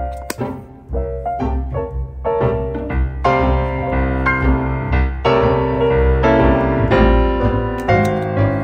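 Background piano music, a run of notes at a lively pace.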